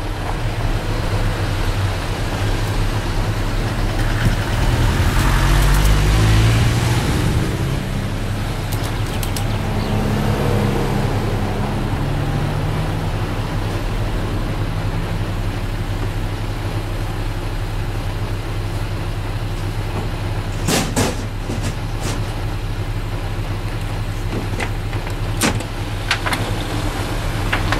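Motor vehicle engine running steadily, with a vehicle swelling louder and rising in pitch about five seconds in. A few sharp clicks or knocks come near the end.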